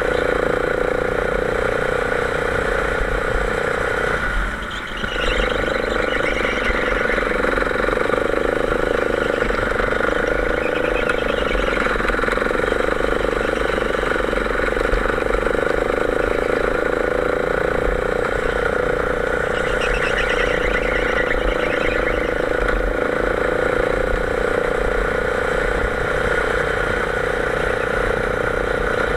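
Go-kart engine running steadily under throttle, heard on board at racing speed. Its level drops briefly about four to five seconds in, then picks up again.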